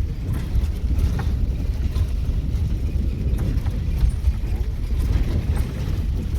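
Open Maruti Gypsy safari jeep travelling on a jungle track: a steady low rumble of engine and rough-road running, mixed with wind buffeting the microphone, with a few faint rattles and clicks.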